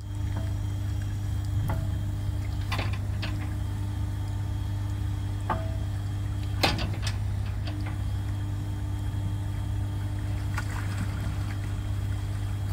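Steady low machinery hum from the AUV launch cradle's drive as it tilts the vehicle down toward the water, with a fainter steady tone that drops out twice. Scattered sharp metallic clicks and knocks come from the steel cradle, the loudest about two thirds of the way through.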